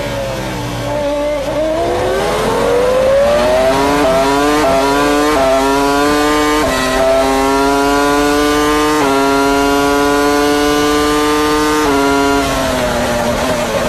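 Williams-BMW FW24 Formula 1 car's V10 heard onboard, coming up from low revs and accelerating hard through the gears, its pitch climbing and dropping sharply at four quick upshifts. The engine then holds high, nearly steady revs before the driver lifts about twelve seconds in, and the pitch falls in steps as he shifts down.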